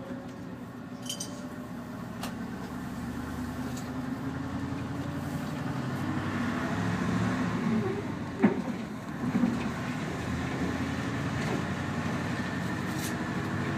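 Mercedes V8 diesel engine of a Neoplan N116 Cityliner bus running under way, heard from the driver's seat as a steady hum that grows louder over the first several seconds. A sharp click comes about eight and a half seconds in.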